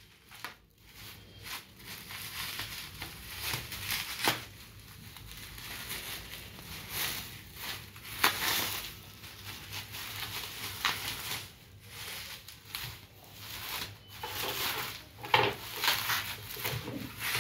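Plastic bubble wrap crinkling and rustling in irregular bursts as it is handled and unwrapped by hand.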